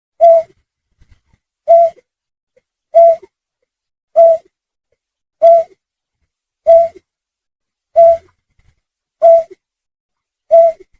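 Bird lure recording of a snipe call: one short, clear note, the same pitch each time, repeated nine times about every 1.3 seconds.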